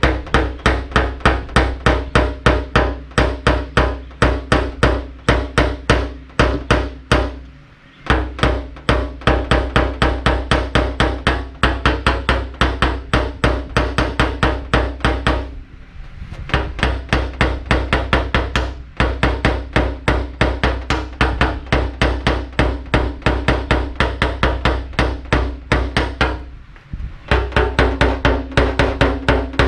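Rapid light hammer taps on a tap-down punch held against a car roof, knocking down a high spot in paintless dent repair. The taps come in long runs of about four or five a second, each with a short metallic ring, broken by three brief pauses.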